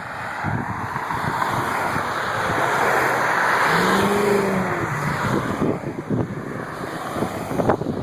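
A road vehicle passing by, its noise swelling to a peak about halfway through and then fading, with a short low tone near the middle, over gusty wind buffeting the microphone.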